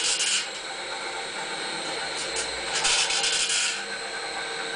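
Homemade rotational casting machine turning on a worm-gear reducer with a chain drive: a steady running hum with rasping, scraping squeaks that come and go, the longest about a second. The squeak comes from slight misalignment in its self-centering bearings, with the whole weight of the frame carried on the reducer's output shaft and no second support.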